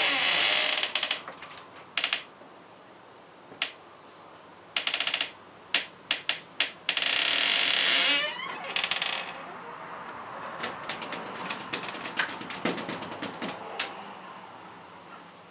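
Repeated bursts of crackling, crinkly rustling with sharp clicks, one ending in a short falling squeak, then a softer steady rustle with scattered clicks.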